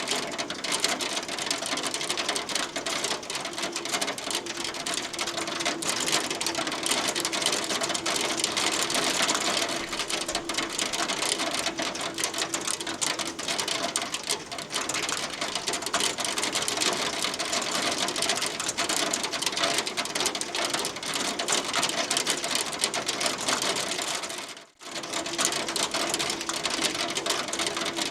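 Hail pelting a hard surface in a dense, continuous patter of small ticks, with a brief dropout about 25 seconds in.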